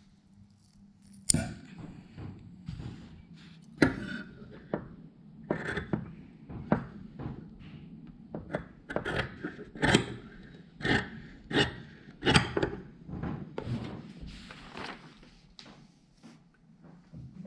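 Large tailor's shears cutting through the layers of canvas along the jacket front's edge, trimming it level. A run of sharp snips comes about one or two a second and stops shortly before the end.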